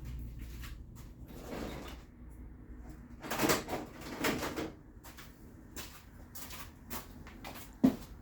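Handling noises on a workbench as a ribbon cable and tools are picked up and moved: a few short rustles in the middle and one sharp click near the end.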